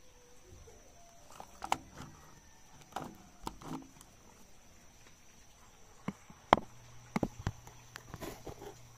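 Vines and twigs being pulled and snapped off by hand, with leaves rustling: a run of scattered sharp cracks, the loudest a little after six seconds in.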